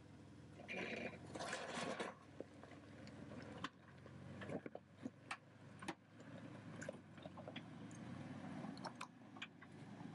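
Many scattered clicks and knocks over a faint low rumble.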